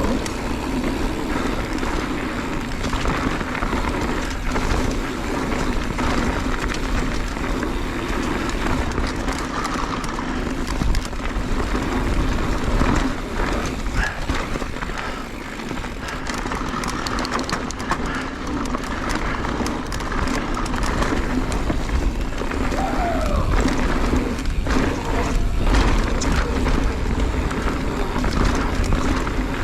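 Mountain bike descending a rocky downhill trail, heard from the moving bike: tyres rolling and crunching over rock and dirt with wind rushing over the microphone. A steady buzz runs underneath, broken by frequent clattering knocks as the bike hits rocks.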